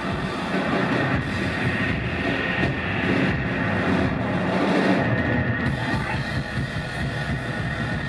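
Rock band playing live through a PA: electric guitars, bass guitar and drums, loud and steady throughout.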